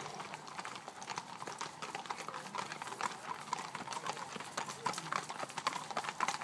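Several horses walking on a paved road, their hooves clip-clopping in an uneven overlapping patter that grows louder near the end.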